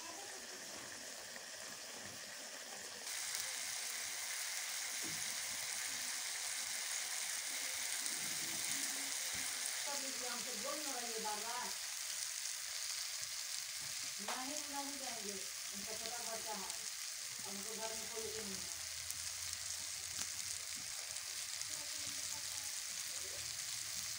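Vegetable pieces sizzling in hot oil in a steaming metal kadai as they are stirred with a spatula. The sizzle gets louder about three seconds in and then stays steady.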